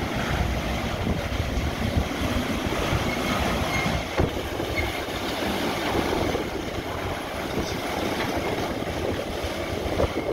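Wesumat Evolution rollover car wash at work: its spinning bristle brushes sweep over a car amid water spray, a steady dense wash noise with one sharp knock about four seconds in.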